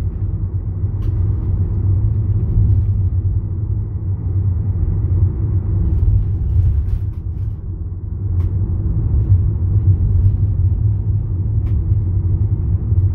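Steady low road and tyre rumble heard inside the cab of a Ford E-Transit electric van driving along at road speed, with a few faint ticks.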